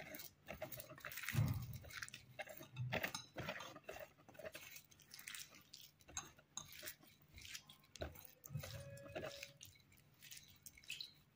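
Fingers kneading and pressing sticky magnetic slime against a plate: faint, irregular squishing and small clicks, with a few soft thumps.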